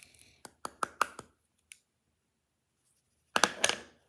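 Small clicks and taps from handling makeup containers: a quick run of sharp clicks in the first second and a half, then a brief louder rustling scrape near the end.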